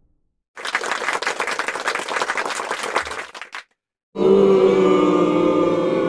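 Applause for about three seconds, stopping abruptly. After a short gap, a large concert crowd singing together.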